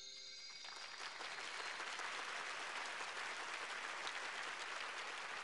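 The song's last held notes die away, and about half a second in a large audience starts applauding, swelling within a second and then holding steady.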